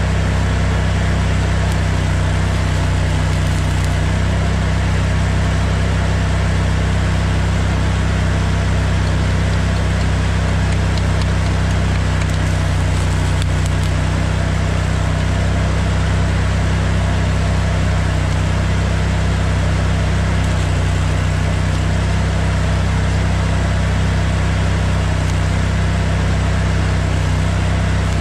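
Stick welding arc crackling and sizzling steadily as a bead is laid into the cracked steel of a mower deck, over the steady drone of an engine running at idle.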